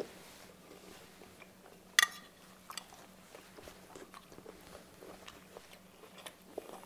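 Quiet eating sounds: soft chewing and small mouth and cutlery clicks, with one sharp clink of a metal fork against a ceramic plate about two seconds in.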